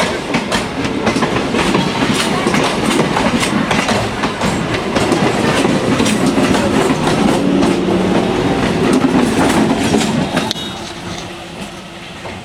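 Train running past at speed, its wheels clicking over the rail joints; the noise drops away about ten seconds in as the train goes by.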